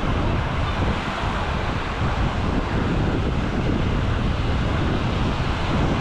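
Low Mediterranean surf breaking and washing up a sandy beach, a steady rushing wash, with wind rumbling on the microphone.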